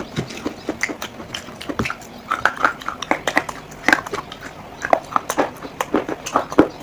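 Baked clay crunching and cracking in irregular sharp snaps and clicks, with a few louder cracks.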